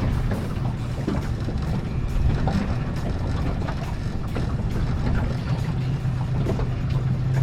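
Boat's outboard motor running steadily at trolling speed, with wind on the microphone.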